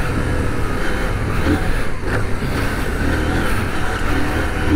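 CF Moto 800MT's parallel-twin engine running steadily under load as the motorcycle rides a gravel trail.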